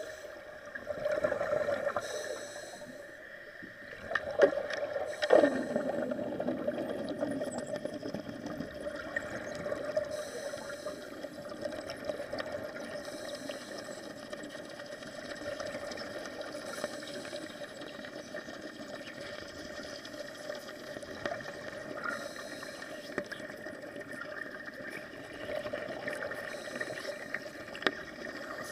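Underwater wet arc welding heard through the water: a steady crackling buzz mixed with bubbling, with two sharp pops about four and five seconds in.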